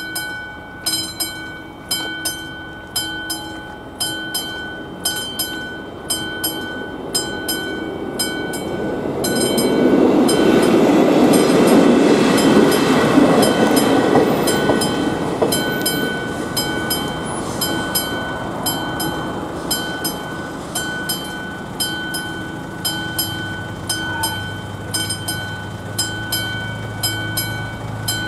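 Level-crossing warning bell of AŽD 71 signals ringing in regular strokes throughout. About a third of the way in, a two-car regional train rolls over the crossing, the loudest sound, and dies away after a few seconds. Near the end a low engine hum joins in from a van waiting at the crossing.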